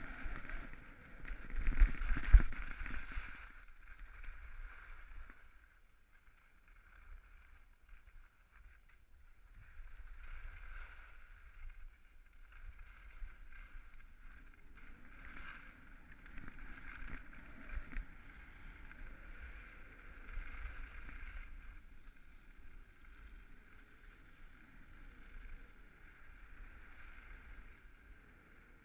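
Skis sliding and scraping over packed snow on a downhill run, with wind rushing over the microphone. The sound is loudest in the first three seconds, then settles into a softer hiss that swells and fades.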